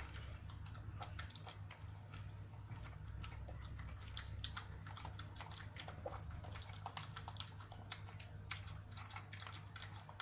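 A Pekingese dog chewing and eating meat treats: a faint, irregular run of small clicks and smacks from its mouth, with no pause.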